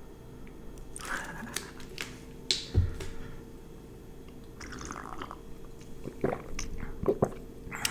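Close-miked table handling sounds: scattered soft clicks and rustles, with a dull thump about three seconds in and a run of small clicks near the end.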